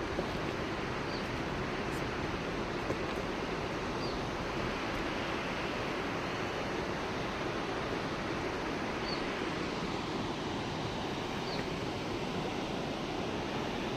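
Steady rushing outdoor noise, with a few faint, short, high chirps every few seconds.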